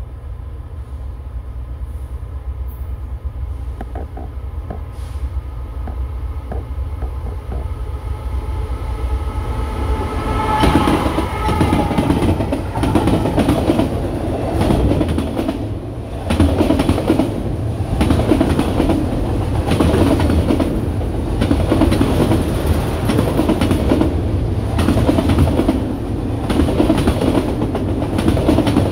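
Norfolk Southern diesel locomotive approaching with a low rumble that builds for about ten seconds, then passing. After it, a long string of autorack freight cars rolls by with a steady rhythmic clickety-clack of wheels over the rail.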